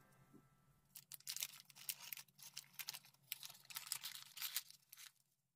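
A folded colored-paper origami magic cube rustling and crinkling as it is flexed open and turned over in the hands, a quick irregular run of small paper crackles starting about a second in.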